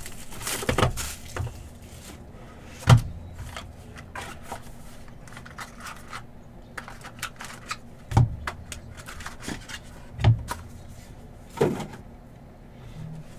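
Plastic shrink wrap crackling as it is torn off a trading card box, then a few hard clacks, about four over ten seconds, as rigid plastic card cases and the box are handled and set down on the table.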